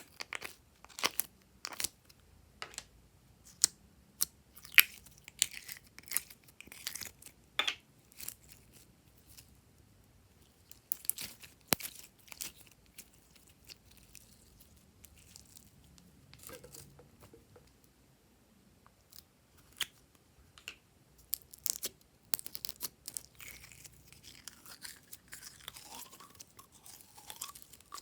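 Glossy slime being mixed and pressed by hand, giving irregular sharp clicks and crackles. There is a sparser patch about halfway through, and the crackling grows denser near the end.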